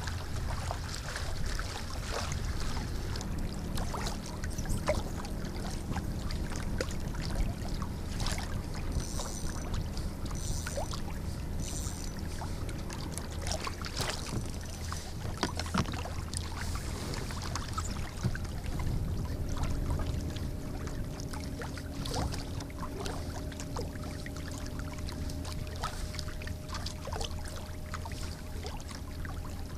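Kayak moving across a lake: water lapping and trickling along the hull over a steady low rumble, with scattered small knocks and clicks.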